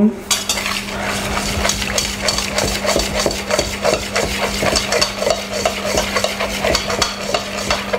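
Wire balloon whisk beating an olive oil and honey marinade in a stainless steel bowl: quick, rhythmic scraping and clinking of the wires against the steel.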